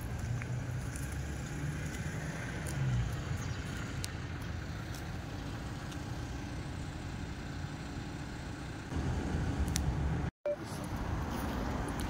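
Outdoor ambience dominated by a steady low rumble that swells and eases. The sound cuts out completely for a moment about ten seconds in.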